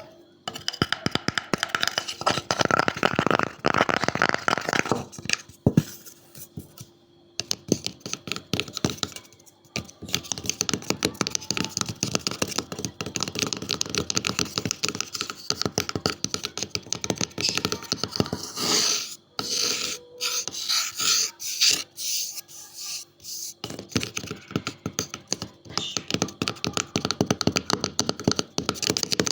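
Close-up tapping and scratching on wood, in quick, dense runs of small clicks and scrapes broken by a few short pauses.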